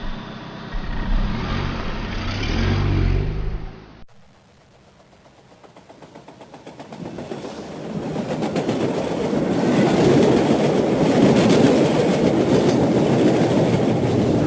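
A vehicle engine running, then an abrupt cut to a rumbling sound with a fast, regular clatter that swells from faint to loud over several seconds, as of something heavy approaching.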